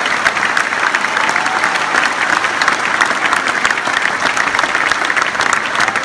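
Large audience applauding, many hands clapping densely and steadily.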